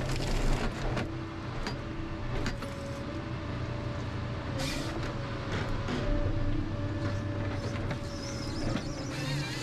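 Ponsse Scorpion King forest harvester working: the diesel engine and hydraulics run steadily with a held whine, and brief hissing rushes come about halfway and near the end as the crane and harvester head are worked.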